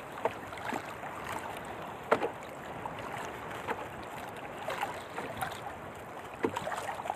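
Choppy sea water lapping against the hull of a small wooden outrigger canoe in strong wind, with a few short slaps about two seconds in and near the end.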